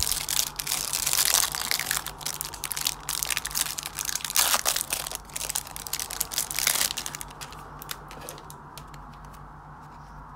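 Clear plastic shrink-wrap crinkling and crackling as it is peeled off a stack of trading cards, dying away about seven seconds in.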